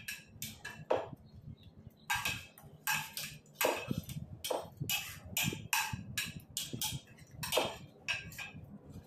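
Metal spoons scraping and clinking on ceramic plates of chatpate while eating, in a rapid, irregular run of short clicks, about two to three a second.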